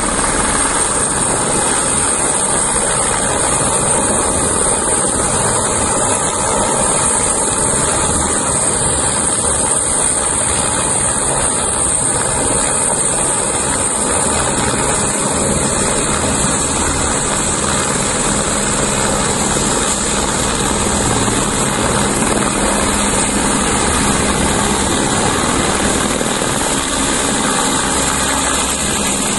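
AS350 Écureuil-type firefighting helicopter hovering low while it refills its slung water bucket from a tank. Its rotor and turbine run loud and steady, with a high turbine whine over the rotor noise.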